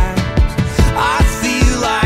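Pop song with a steady kick-drum beat, about two and a half beats a second, under sustained instrumental chords.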